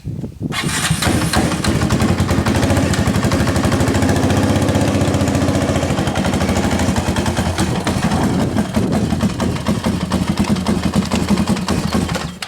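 Yamaha 660 Raptor ATV's single-cylinder four-stroke engine running loud and fairly steady under throttle. It starts abruptly about half a second in and cuts off just before the end.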